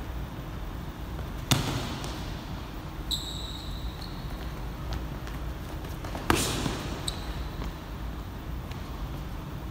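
Two loud smacks of boxing gloves landing punches, one about a second and a half in and another about five seconds later, each echoing in a large gym hall. Brief sneaker squeaks on the court floor come between them.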